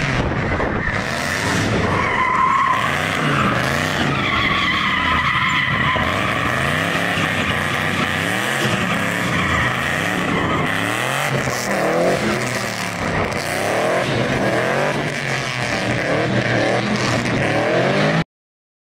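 LS-swapped box Chevy's V8 revving up and down again and again during a smoky burnout and donuts, with the rear tyres squealing as they spin. The sound cuts off suddenly near the end.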